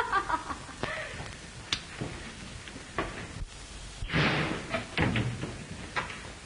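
Scattered light knocks, then a louder thud about four seconds in, over the steady hiss of an old film soundtrack.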